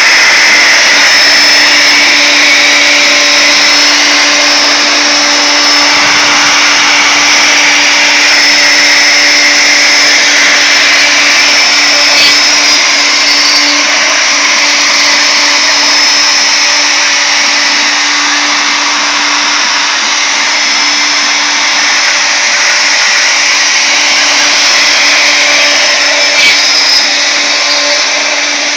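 Wood router used as a CNC router's spindle, running at speed with a steady high whine while a small ball-nose bit cuts wood on a finishing pass.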